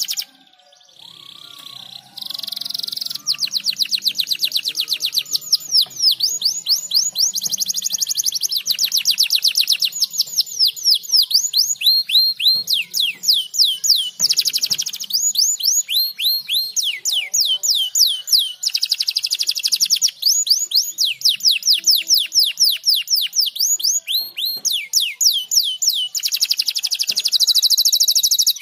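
Domestic canary singing: rapid trills of repeated falling whistled notes, changing speed from phrase to phrase. The song drops away briefly near the start and picks up again about two seconds in.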